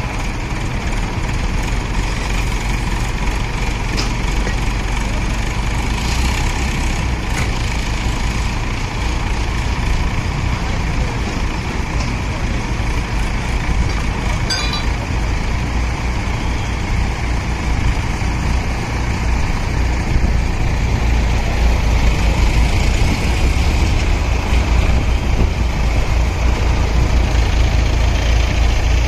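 Heavy vehicle engine running steadily with a low rumble, growing a little louder in the last third, with one short click about halfway.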